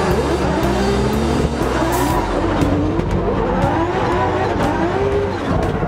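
Drift car engine revving hard and rising and falling in pitch through a tandem drift, heard from inside the cockpit, with tires squealing.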